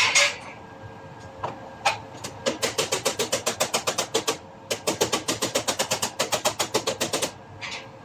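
Body hammer tapping a dented sheet-metal panel against a dolly: a few single blows, then two long runs of quick light strikes at about ten a second.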